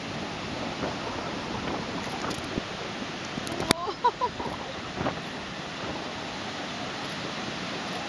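Steady wash of surf and wind on an open beach. A sharp click a little before the middle is followed by a few brief high-pitched sounds.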